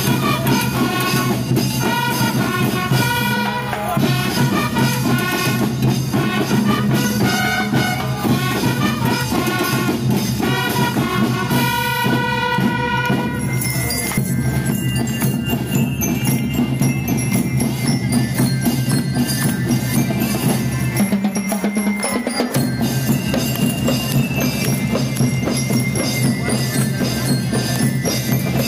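Peruvian school rhythm band (banda rítmica) playing: bass drums, snare drums and tenor drums beat steadily, with a bell-like melody over them during the first half. From about fourteen seconds in, the drums carry on nearly alone.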